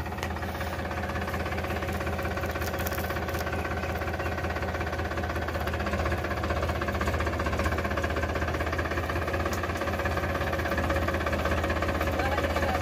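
Powertrac Euro 50 tractor's diesel engine running steadily at low revs as the tractor moves slowly.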